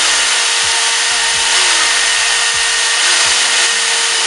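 Corded electric drill running steadily at full speed, a 4 mm bit drilling out the centre of a snapped steel bolt in a car's body, with a steady motor whine. It cuts off near the end.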